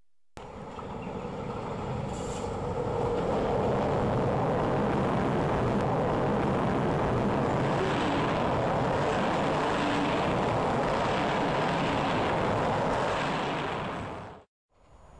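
Passenger train, a red CFR locomotive hauling coaches, passing close at speed. The rush of the train swells as it approaches, then holds as a steady rumble and rattle of wheels on rail with a clatter that comes back about once a second as the coaches go by. It fades and cuts off suddenly near the end.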